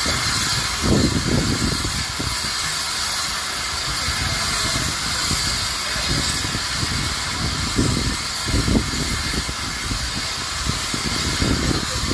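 Steady hiss of steam from a stationary Polish PKP class TKp (Śląsk) 0-8-0T steam tank locomotive standing in steam, with irregular low rumbles, the loudest about a second in and around eight to nine seconds in.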